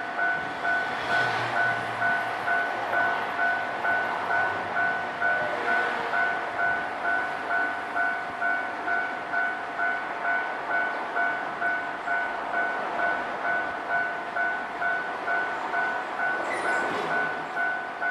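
Japanese railway level-crossing warning bell dinging steadily, about three strikes every two seconds, while the crossing stays closed. Trains rumble past under it, swelling about a second in and again near the end.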